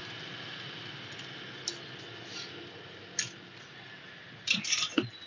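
Steady faint hiss with a few isolated clicks, then a quick run of clicks and knocks about four and a half seconds in.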